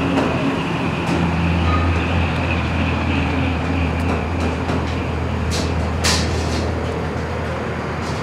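A steady low rumble with a faint higher whine, and a few light clicks about five and six seconds in.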